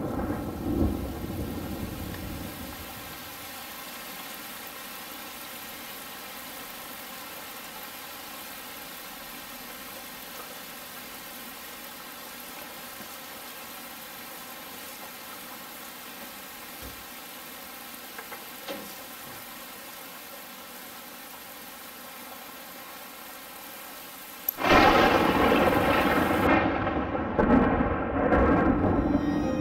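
Thunderstorm: a rumble of thunder fading over the first couple of seconds, then steady rain, and a sudden loud crash of thunder about 25 seconds in.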